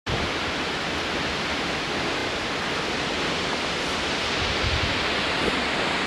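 Seljalandsfoss waterfall's steady rushing hiss of falling water, with a few low wind buffets on the microphone near the end.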